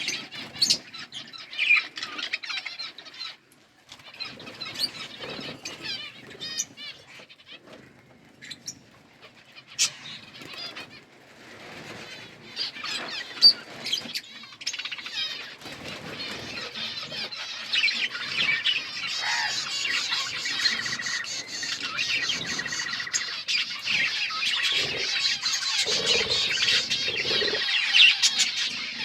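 A small flock of Australian parrots chirping and chattering, mixed with sharp clicks and rustles as they feed on seed. The chatter grows denser and louder about halfway through.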